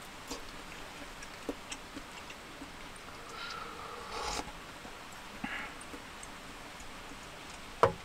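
A person sipping and slurping hot food from a small stainless steel pot, with light clicks of chopsticks and dishes. Near the end the metal pot is set down on a wooden table with a sharp knock.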